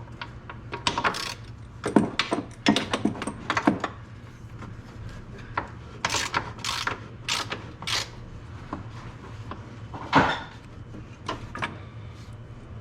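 Adjustable (crescent) wrench working an 18 mm suspension bolt on a UTV: irregular metal clicks and clanks of the wrench on the bolt, over a low steady hum.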